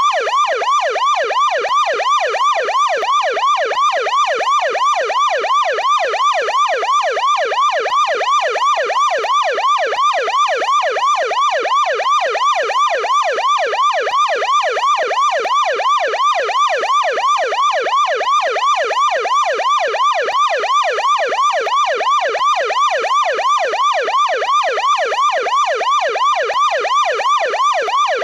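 American police car electronic siren on its yelp tone, in a deep-pitched version: a fast, unbroken up-and-down wail repeating several times a second.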